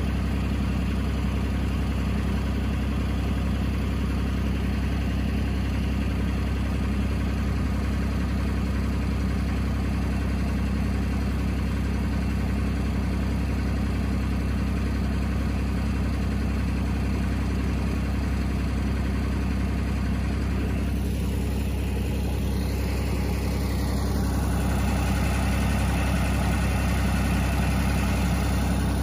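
A New Holland LX865 Turbo skid steer's diesel engine idling steadily, a little louder in the last few seconds.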